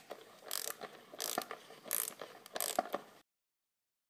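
Ratchet wrench worked in about four quick strokes, each a short burst of clicking, with a few single clicks between; the sound cuts off abruptly a little past three seconds in.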